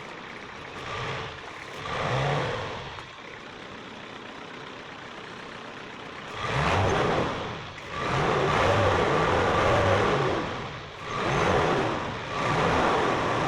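Vehicle engine running under way, its note rising and falling in several surges as it revs, with a steady background of road noise.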